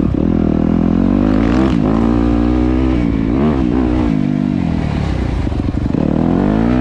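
Dirt bike engine running under throttle while riding, its pitch dipping and climbing again a couple of times as the rider works the throttle.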